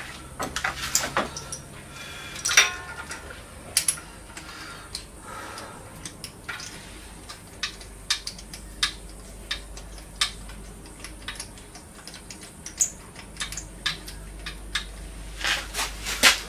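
Irregular metallic clinks and knocks of hand tools against engine parts during a teardown, one clink about two and a half seconds in ringing briefly, with a couple of louder knocks near the end.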